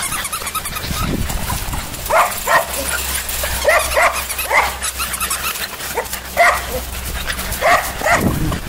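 Puppies yipping in play: short, high yips, about eight of them, several coming in quick pairs.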